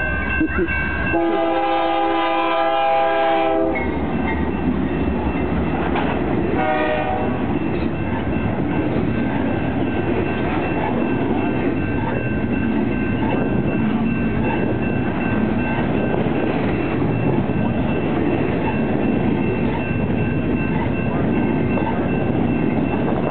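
Freight locomotive's chord air horn sounding a short blast at the start, a long blast about a second in and a short blast near seven seconds. After that comes the steady rumble and wheel clatter of a long double-stack container train passing close by. A steady high tone runs underneath throughout.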